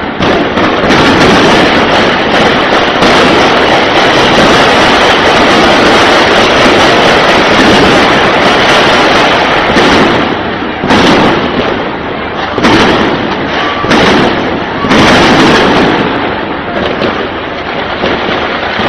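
Heavy gunfire in a street battle, very loud. The shots are so dense that they merge into a near-continuous crackle, then break into separate bursts with short gaps from about ten seconds in.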